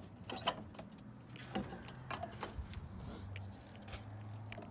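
Scattered light clicks and rattles, closely spaced at first and fewer near the end, over a faint low steady hum.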